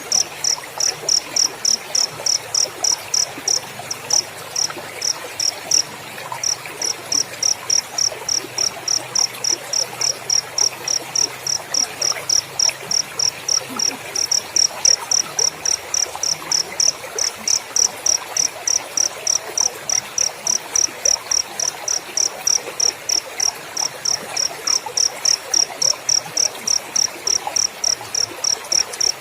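Cricket chirping in a steady rhythm, about three high chirps a second, with a brief falter a few seconds in.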